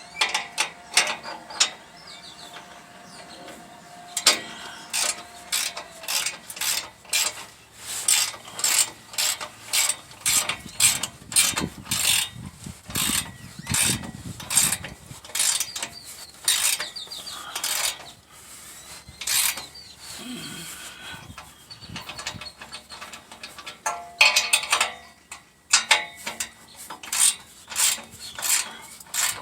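Extending ratchet clicking through repeated strokes as it tightens the nuts of an exhaust pipe clamp: runs of sharp clicks with short pauses between them.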